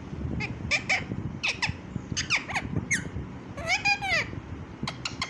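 Pet talking parrot giving a string of short, high squeaky chirps, with one longer call that rises and falls about four seconds in.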